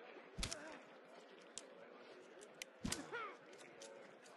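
Two faint lashes of a whip, about half a second in and near three seconds, the second followed by a short falling groan.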